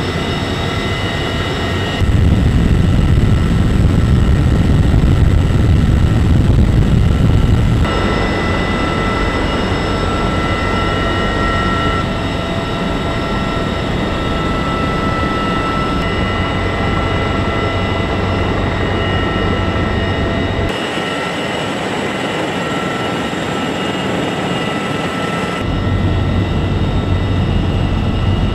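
Cockpit noise of a CH-53E Super Stallion heavy helicopter in flight: a steady drone of turbines and rotors with a high, constant gearbox whine on top. The low rumble jumps louder and drops away abruptly a few times.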